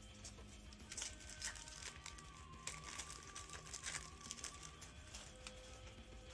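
Faint crinkling and soft clicking of football trading cards and their foil pack wrapper being handled and flipped through, with scattered short rustles.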